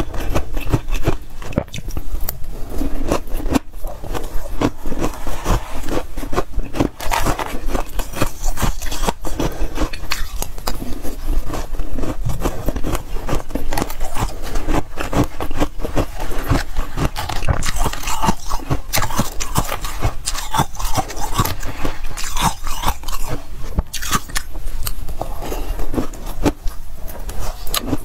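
Freezer frost being bitten and chewed: a dense, continuous run of crisp crunches with some scraping.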